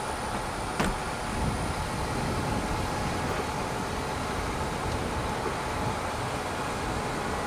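Car rolling slowly on an asphalt street, a steady hum of engine and tyre noise, with a single sharp click about a second in.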